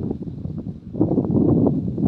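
Wind buffeting the microphone: an uneven low rumble in gusts that eases just before the middle and picks up again from about a second in.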